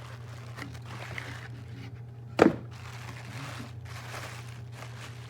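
A single sharp knock about two and a half seconds in, with a few faint clicks, over a steady low hum: handling noise as something is set down or bumped.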